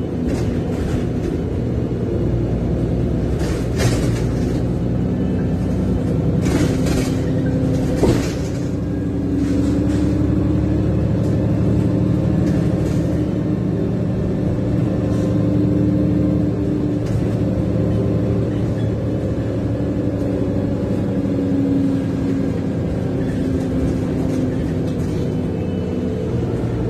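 Onboard sound of a VDL DB300 double-decker bus on the move, heard from the upper deck: a steady engine and road drone with low tones that drift slightly in pitch. There are a few sharp knocks or rattles about 4 and 7 seconds in, and the loudest about 8 seconds in.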